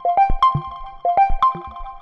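Moog Subsequent 25 analog synthesizer playing a sequence: short, sharply struck notes with low bass notes beneath, in a phrase that repeats about once a second.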